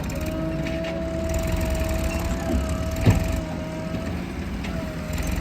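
Diesel engine of a JCB 3DX backhoe loader running steadily, with a constant whine over the low rumble and a single sharp clank about three seconds in.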